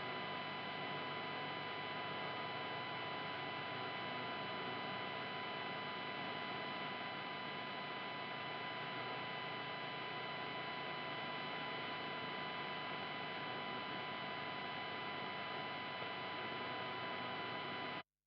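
Steady electrical hum and buzz from an Ibanez RG470AHM electric guitar's unshielded pickup and control circuit, heard through the amplified signal with nothing played. This is mains hum picked up because the electronics cavity is poorly shielded, before copper tape is fitted. It stops abruptly near the end.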